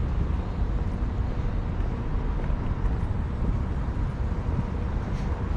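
Outdoor city street noise: a steady low rumble of traffic.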